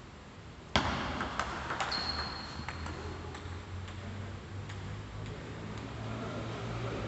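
Table tennis ball clicks: a sharp loud hit about three-quarters of a second in, then a few quicker light clicks of the celluloid ball on bat, table and floor that thin out as the rally ends.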